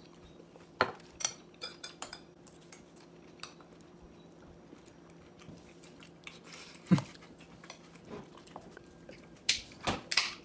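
Metal fork clinking and scraping against a ceramic bowl while eating, with a louder knock about seven seconds in. Near the end a beer can is picked up and handled, giving several louder rattling bursts.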